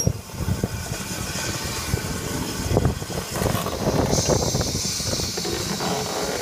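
LMS Ivatt Class 2MT 2-6-0 steam locomotive: a low, uneven rumble, with a steady steam hiss coming in about four seconds in.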